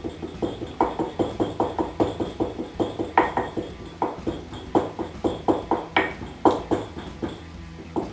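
Wooden pestle pounding in a glazed ceramic mortar, crushing fried garlic and spices into a paste. The strikes are short and uneven, about three a second.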